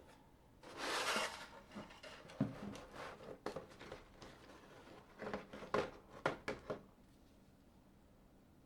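Packaging being handled during an unboxing. There is a short rustle about a second in, then a series of irregular light clicks and taps, bunched together near the end.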